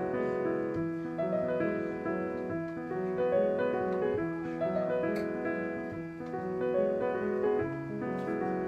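Background piano music, a melody of held notes changing steadily throughout.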